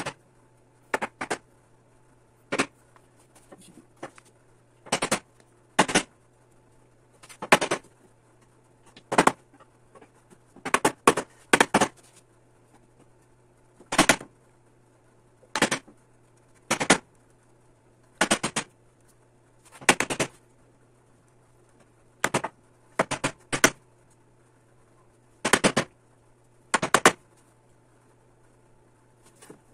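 Small metal-headed hammer striking a wooden block laid on a bench back's top rail, driving the rail down onto its row of wooden spindles. Sharp taps come in ones, twos and threes, with a second or two between groups.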